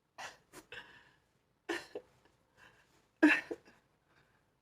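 A woman's short, breathy vocal bursts: about five of them, separated by silence, the loudest about three seconds in.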